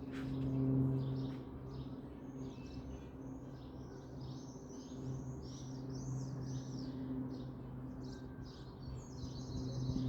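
Small birds chirping in a quick run of short, arching chirps. A steady low hum runs underneath and swells briefly near the start.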